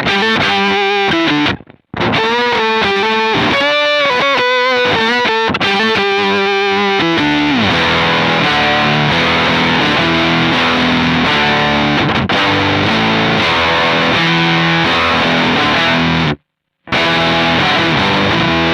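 Electric guitar played through a Kemper's fuzz with an added lower octave, giving a heavy, thick distorted tone. Sliding single notes come first, then held chords. The sound cuts off abruptly twice, once early and once near the end.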